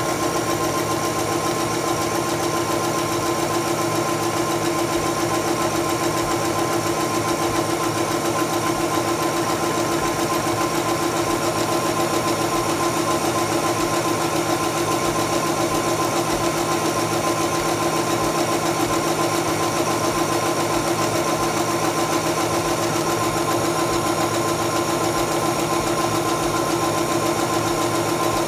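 Singer Stylist 7258 computerized sewing machine running steadily at speed, stitching an automatic buttonhole: a constant motor hum with the needle's fast, even stitch rhythm.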